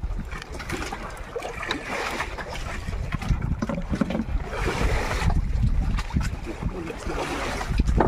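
Wind buffeting the microphone and sea water washing and splashing around a small fishing boat, swelling in gusts a few times, with scattered knocks.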